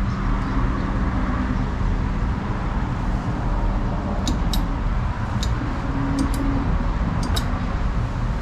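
ArcDroid CNC robot's motor-driven arm swinging through a calibration move, a faint motor hum over a steady rumble of background noise. Several light clicks in the second half.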